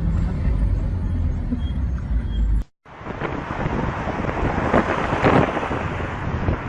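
A low, steady rumble that cuts off abruptly under three seconds in, then, after a short gap, a rushing noise like wind buffeting the microphone, swelling briefly about five seconds in.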